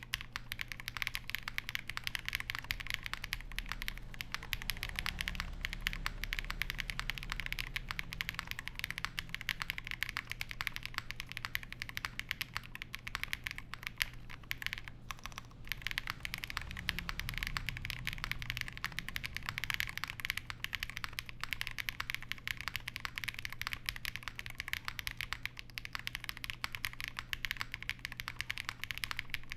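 Continuous fast typing on an Angry Miao Compact Touch (65 Less) spring-mounted mechanical keyboard with lubed Tecsee Honeydew switches, an FR4 plate and Drop Keysterine Smoke keycaps: a dense, steady stream of key clicks.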